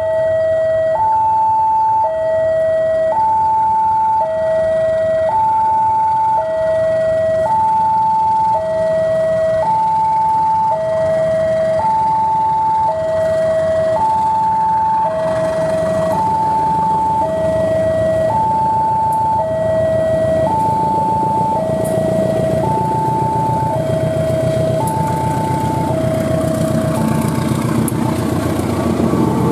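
Railway level-crossing alarm sounding a two-tone electronic warning, a high and a low note alternating about once a second. Under it, a CC 203 diesel locomotive's engine grows louder from about halfway as the train approaches, and is loudest as it passes close near the end.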